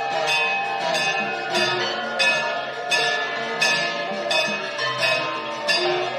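Instrumental music with a steady beat of struck, ringing notes, about three every two seconds, over sustained tones.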